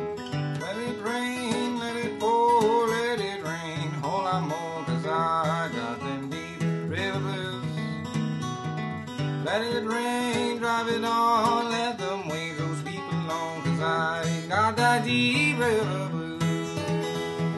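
Steel-string acoustic guitar fingerpicked in a country-blues style, with a steady alternating-thumb bass under the melody.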